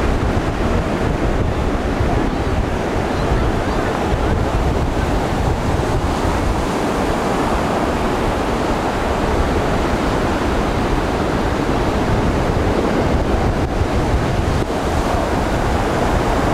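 Ocean surf washing ashore with wind buffeting the microphone: a steady, even noise, heaviest in the low end.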